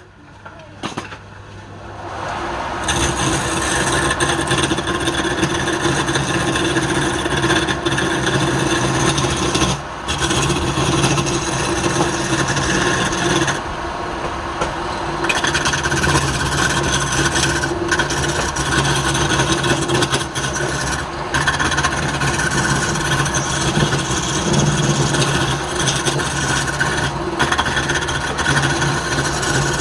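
A wood lathe running while a tool scrapes against the spinning wood: a steady motor hum under continuous rasping. It builds up over the first couple of seconds and eases off briefly a few times.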